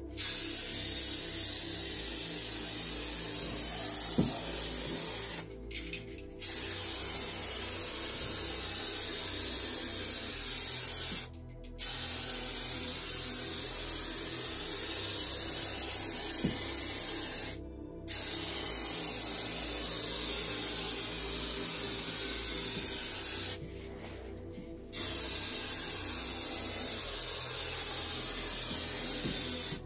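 Paint being sprayed in five long hissing passes of about five seconds each, with brief pauses between, laying on a second and final coat.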